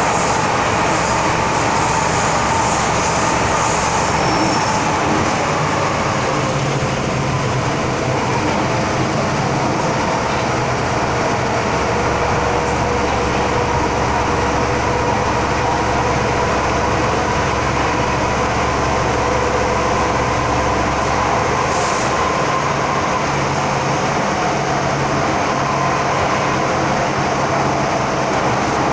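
Inside an MTR M-Train carriage running at speed through a tunnel: a steady rumble of wheels on rail and running gear, with a faint held whine.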